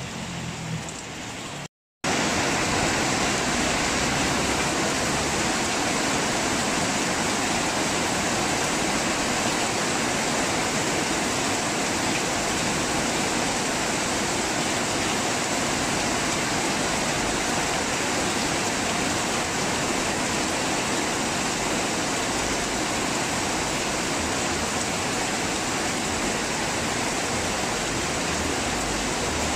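Heavy rain pouring steadily as an even, unbroken hiss, after a brief silent break about two seconds in.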